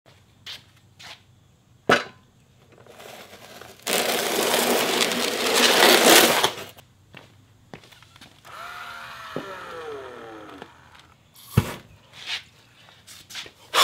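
An ice auger grinding and crunching into a cardboard box for a couple of seconds, then a cordless drill's motor whining with its pitch sliding down as it bores into the box. Several sharp knocks come before and after, the loudest one a little after the drill stops.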